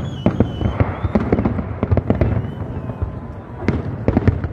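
Aerial fireworks display: shells bursting one after another in quick succession, a continuous run of sharp bangs and crackle, with a few louder bangs near the end.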